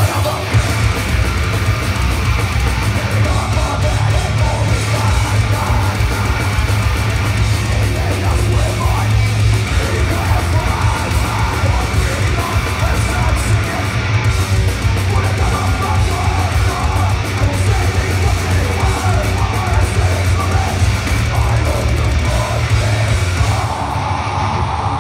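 Heavy metal band playing live at full volume: distorted guitars, a rapid kick drum and shouted vocals, heard from the crowd.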